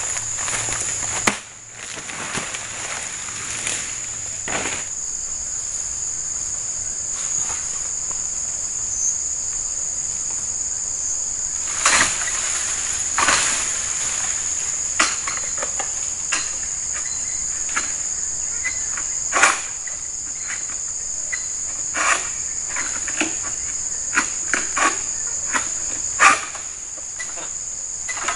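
A steady, high-pitched chorus of insects, with scattered sharp cracks and rustles from a long harvesting pole working in an oil palm's crown.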